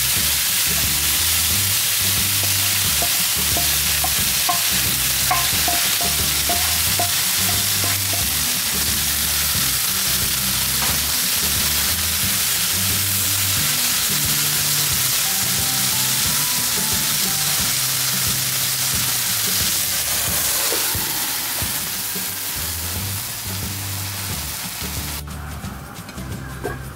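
Thick beef steak sizzling hard in a frying pan with butter and soy sauce, a steady, loud hiss that cuts off suddenly near the end. Background music with a bass line plays underneath.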